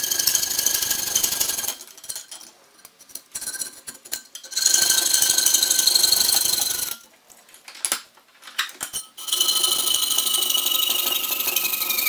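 Piercing saw cutting through thin sheet metal with rapid strokes, in three spells with short pauses between them. The blade and sheet ring with high tones, and in the last spell the ringing falls in pitch near the end.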